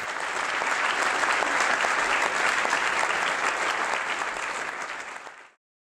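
Audience applauding, building over the first second, then fading and stopping abruptly near the end.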